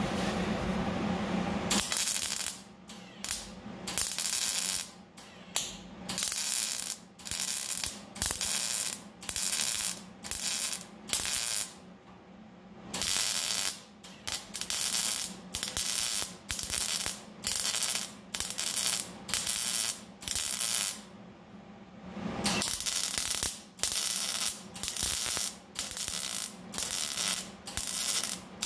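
MIG welder crackling in short bursts, roughly one a second, as plug welds fill the drilled holes joining a rocker-panel patch to the inner panel. There are two pauses, near the middle and about three quarters of the way in.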